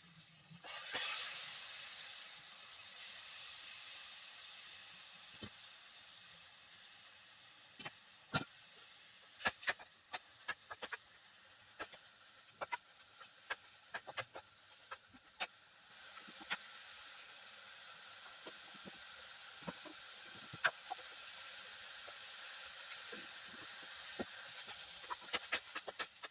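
Food sizzling in hot oil in a pan, with many sharp pops scattered through it. The sizzle starts suddenly about a second in, dies down, and rises again about two-thirds of the way through.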